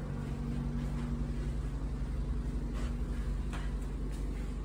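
Steady low machine hum with a few held low tones, and a few faint clicks in the second half.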